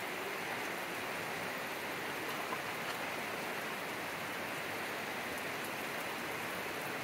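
Steady rain falling, an even hiss with no change in level.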